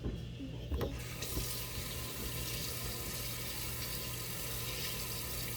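Water running from a tap into a sink, a steady rush that starts about a second in, just after a short knock.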